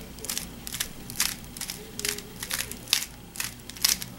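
Aolong v2 speedcube layers turned by hand, a run of short plastic clicks, about three a second and unevenly spaced, as a last-layer permutation algorithm is executed.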